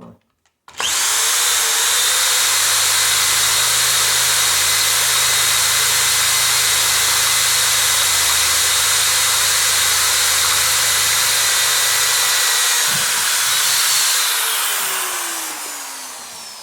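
Single-speed, high-torque 650 RPM corded drill starting up about a second in and running steadily while drilling a hole. Near the end it is released and spins down, its whine falling in pitch as it fades.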